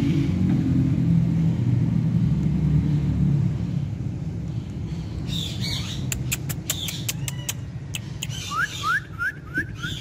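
A low rumble fades over the first few seconds. From about halfway, a rose-ringed parakeet gives squawks and chirps amid a string of sharp clicks, ending in a quick run of five short rising chirps.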